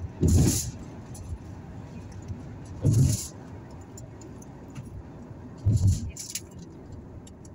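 Steady road noise of a moving car, heard from inside through an open window, broken by three short loud bursts a few seconds apart.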